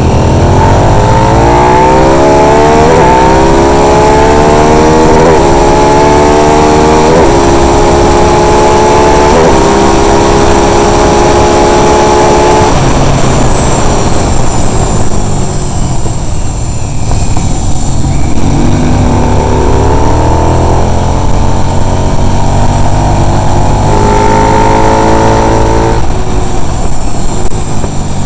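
Racing motorcycle engine heard from an onboard camera, accelerating hard with its note climbing and dropping back at each of four quick upshifts, then falling away a little under halfway through. After a stretch of rushing wind and road noise it pulls up through two more gears and drops off again near the end.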